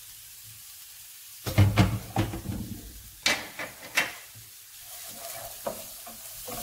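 Diced onion, carrot and celery sizzling in olive oil in a non-stick frying pan: the start of a soffritto. A few loud knocks and clatter come in the middle, and near the end a wooden spatula stirs and scrapes the vegetables around the pan.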